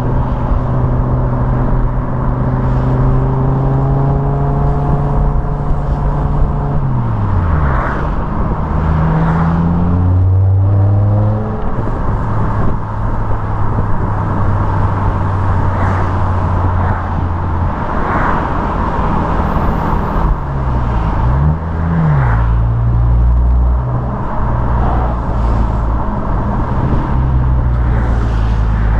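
BMW M5 E61's 5.0-litre V10 exhaust through its standard rear silencers, heard close behind the car while driving. The engine note holds steady, falls away sharply about seven seconds in and picks up again, then dips and climbs once more past the middle, over a constant rush of road and wind noise.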